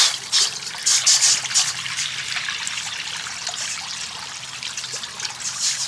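Water poured from a glass jar into a stainless steel pan. It splashes loudly for the first couple of seconds, then settles into a steadier trickle that slowly gets quieter.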